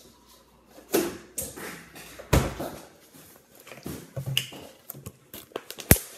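Plastic drink bottles handled on a counter: a string of irregular knocks and thuds as they are picked up and set down, with rustling between them. A sharp knock comes just before the end.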